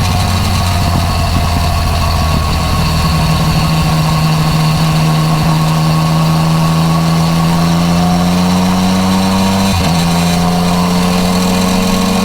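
Yamaha MT-09 Tracer's three-cylinder engine, fitted with an Akrapovič exhaust, running under way, its note climbing slowly and evenly, with a brief dip in pitch about ten seconds in before it holds steady.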